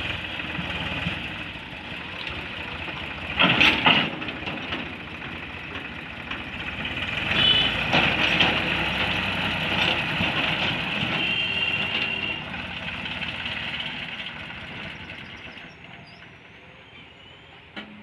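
Tractor's diesel engine running under load while its hydraulic tipping trailer dumps soil, with loud knocks about three and a half seconds in and again about eight seconds in. The engine sound fades over the last few seconds.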